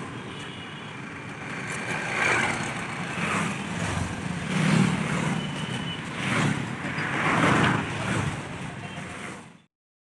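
Street traffic: motorbikes and cars passing one after another, each swelling up and fading. The sound cuts off abruptly near the end.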